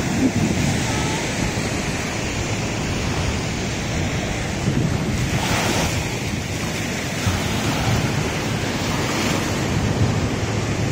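Small surf breaking and washing up a sandy beach, with wind buffeting the microphone as a low rumble. One wave washes in louder a little past halfway.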